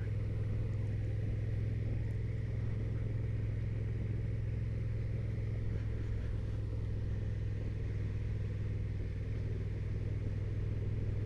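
Honda NT1100's parallel-twin engine running at a steady cruise with a constant low engine note and road and wind noise, easing off right at the end.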